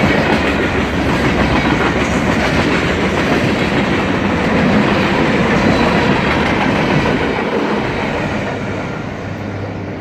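Freight train cars rolling past, a dense steady rumble and clatter of steel wheels on the rails, growing fainter over the last two seconds.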